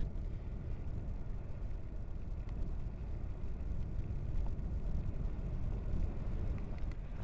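Marum lava lake churning with a steady low rumble, a few faint ticks of spatter over it.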